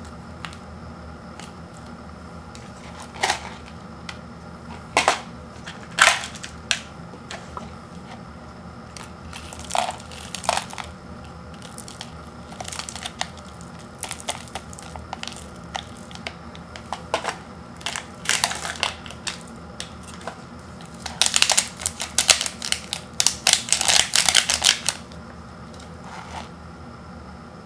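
Foil seasoning packet crinkling and crackling in the hands as its miso soup powder is squeezed out into a paper noodle cup, in scattered crinkles, then a dense run of crinkling near the end.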